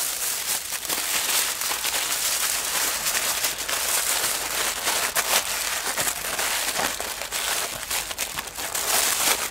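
Triple-layered aluminium foil crinkling and crackling continuously as it is rolled and folded tightly around a potato by hand.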